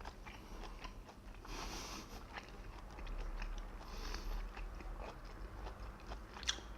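Close-miked chewing of steamed scallop meat: soft, wet mouth sounds with many small clicks, and a sharper click near the end.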